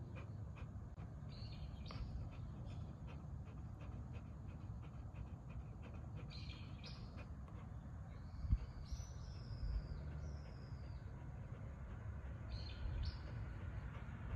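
Golden retriever panting softly while birds call in short high chirps several times, some calls falling in pitch, over a low steady rumble. A single soft thump about eight and a half seconds in.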